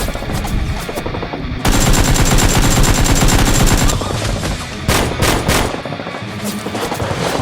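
Automatic gunfire sound effects: a long, loud rapid burst a couple of seconds in, then a few separate shots, over background music.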